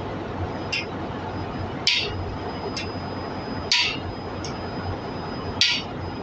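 Sharp metal-on-metal clinks at an even pace, about one a second, alternating louder and softer, over a steady machine hum with a faint high whine.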